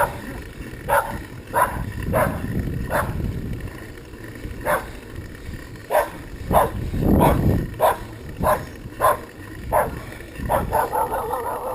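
A dog barking over and over, a dozen or more short barks spaced about half a second to a second apart, over a steady low rumble.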